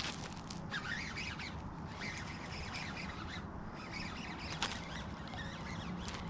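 Birds chirping and calling in short wavering phrases, with a few sharp clicks, over a steady low background rumble.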